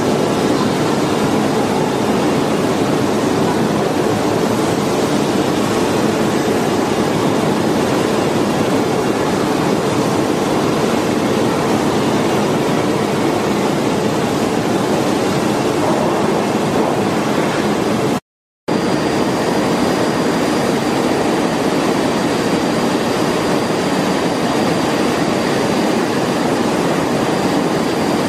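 Steady, loud mechanical noise of a factory paint shop floor. It cuts out for a moment a little past halfway, and a faint high whine runs under it after the break.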